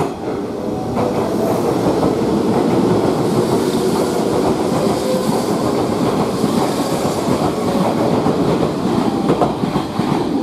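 Kintetsu electric train running close past on the station tracks, its wheels clattering over rail joints and points in a steady, loud rumble.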